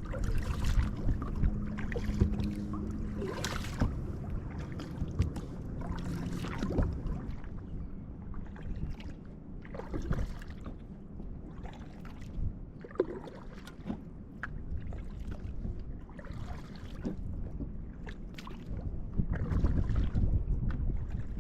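Kayak paddle dipping into the water and splashing in uneven strokes every one to three seconds, over a low rumble, while an inflatable kayak is paddled down a river.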